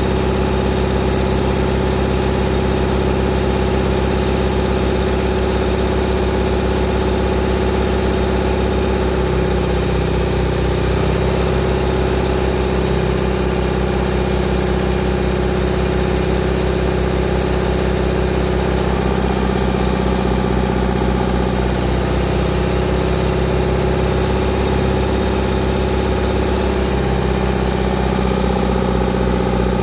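1965 generator engine running steadily at a constant speed on compressed hydrogen and oxyhydrogen (HHO) gas.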